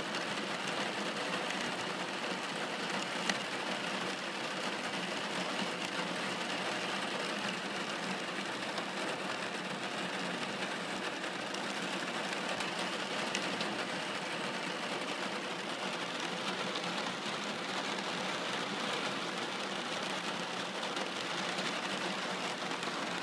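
Rain pattering steadily on a car's glass sunroof, a dense even patter of many small drop impacts, with one sharper tick about three seconds in.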